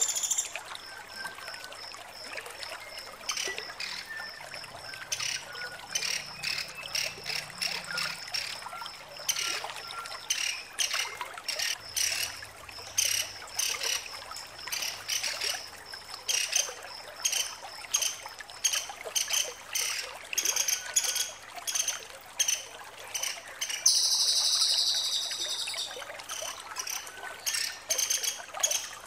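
Female woodpecker (pelatuk sampit) giving sharp, high chattering call notes in quick runs, with a louder, longer trill about 24 seconds in.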